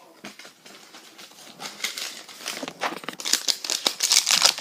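An Ooshies blind-bag wrapper being handled and crinkled open in the hands, with a rapid run of crinkles. The crinkling starts faint and grows loud from about three seconds in.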